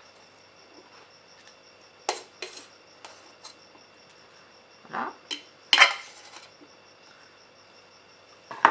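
Metal salad tongs and a glass bowl clinking and knocking against a ceramic bowl as chopped cucumber is tipped in and spread. There are several separate sharp clinks, the loudest about six seconds in.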